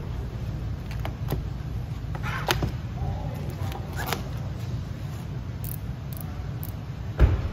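Paint protection film rustling and crinkling in short bursts as it is stretched and pressed over a car's side mirror, over a steady low hum, with a single thump near the end.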